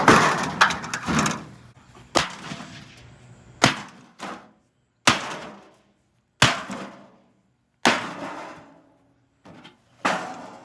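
A General Electric microwave oven being smashed with about seven heavy blows, roughly one every second and a half. Each blow is followed by a clatter that dies away.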